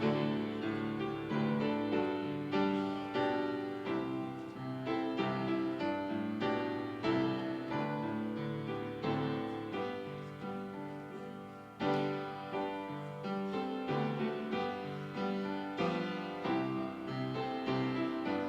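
Piano playing a slow piece, chords struck and left to ring out one after another.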